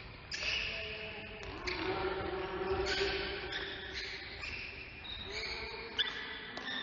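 A basketball being dribbled on a gym's hardwood floor during a game, with short high squeaks, all echoing in a large hall.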